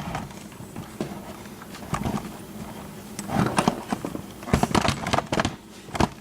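Irregular small clicks and taps of metal lock parts being handled on a work surface while the pins are taken out of a Yale safe deposit lock cylinder, with a cluster of taps in the second half and a sharp click near the end.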